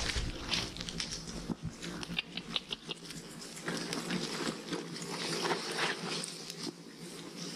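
Footsteps of hikers and pack goats crunching and scuffing along a rocky mountain trail, with many irregular clicks and rustles.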